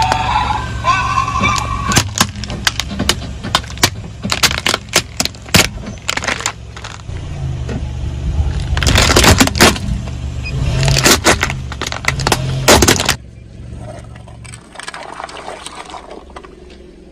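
Car tyre rolling over a hard plastic action-figure toy and crushing it, with many sharp plastic cracks and snaps over the low rumble of the car. The cracking comes in dense clusters and dies away about two-thirds of the way through.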